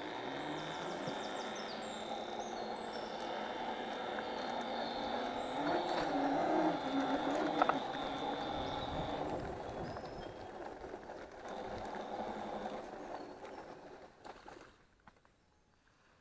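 Electric scooter being ridden: a steady motor whine over road noise, swelling slightly partway through, then dying away near the end as the scooter slows and stops.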